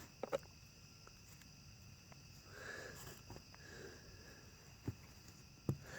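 A few faint clicks and light knocks from handling a chainsaw's side cover and bar, over steady insect chirring.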